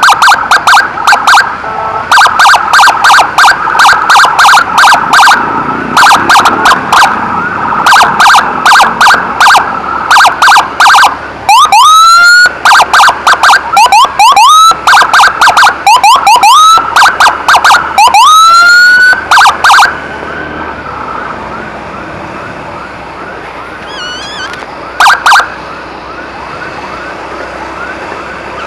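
Emergency siren of an ambulance escort. It sounds loud, rapid on-off blasts of about three a second, then switches to rising whoops about twelve seconds in. The loud siren stops near twenty seconds, leaving a fainter siren sweeping quickly up and down, broken by two short loud blasts.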